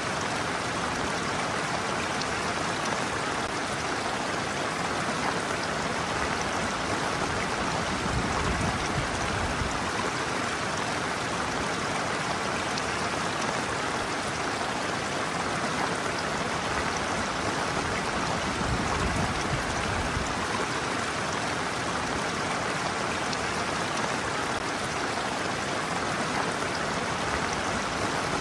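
Stream water running steadily over a shallow slope and around feet standing in it, an even rushing with no pauses.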